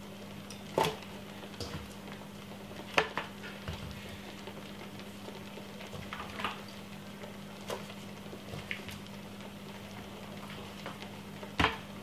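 Marinated lamb chops being lifted from a stainless steel bowl and laid in a metal roasting tray: scattered light clinks and taps against the bowl and tray, a second or more apart, over a steady low hum.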